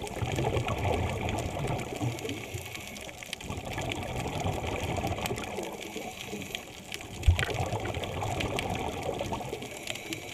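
Scuba diver's regulator exhaust bubbles rumbling and gurgling underwater, heard through a GoPro's underwater housing, in bursts every few seconds, the strongest near the start and again about seven seconds in, over a faint crackling.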